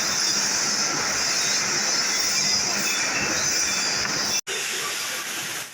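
Steel plate being cut to trim off excess length: a loud, steady, hissing metal-cutting noise, broken off for an instant about four and a half seconds in.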